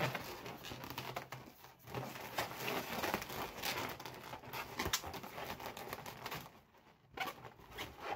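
Inflated latex balloons rubbing and crinkling against each other as they are handled and twisted together, in irregular scratchy bursts with a brief lull near the end.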